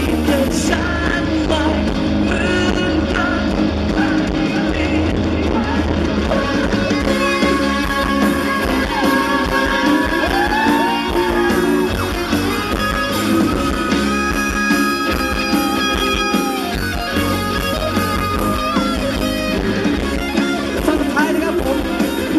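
Live rock band playing: a male singer singing through a microphone over drums and electric guitar, amplified through a PA.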